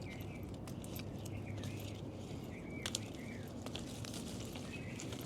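Quiet outdoor background with a few short, faint bird chirps and light clicks from lemons being picked off the tree.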